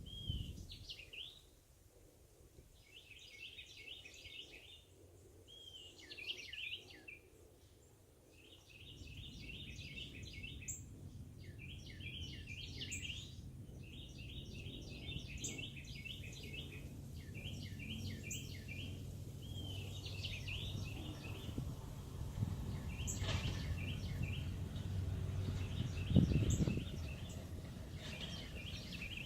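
Songbirds singing in short repeated phrases of quick high notes, over a low rumble that sets in about a third of the way through. Near the end there is a single low thump, the loudest sound.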